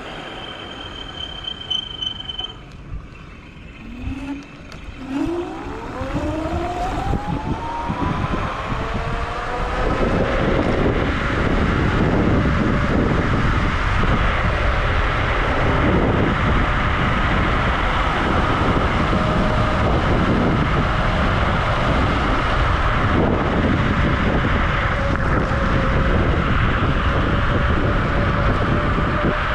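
Wolf Warrior electric scooter's dual 1200 W motors whining, rising in pitch as the scooter pulls away from a slow roll and picks up speed, then holding a steady whine at cruising speed. From about ten seconds in, a loud rush of wind and road noise runs under the whine.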